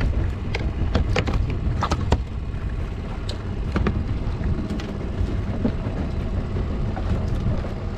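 Steady low rumble of wind buffeting the microphone on a small boat at sea. Several sharp clicks and knocks come in the first four seconds as fishing line and tackle are handled on the deck.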